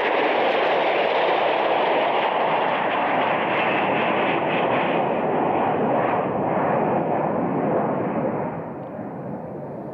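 Harrier II jump jet flying low past, its jet engine making a steady rushing roar that grows duller and fades over the last few seconds as the aircraft flies away.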